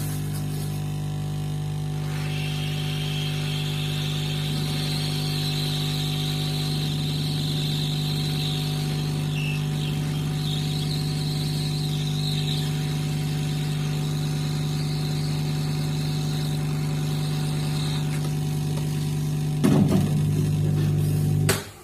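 Hot-air SMD rework station (blower) running with a steady electrical hum, plus a hiss of blown air that comes in about two seconds in. It is heating the soldered display connector to desolder the display from the phone's circuit board. The sound gets louder for a moment near the end.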